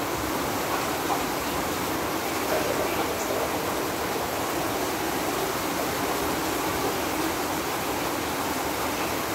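Heavy storm rain falling steadily, an even hiss with no breaks.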